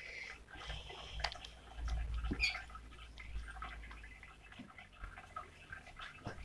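White slime being kneaded and stretched by hand, giving faint scattered wet clicks and small pops.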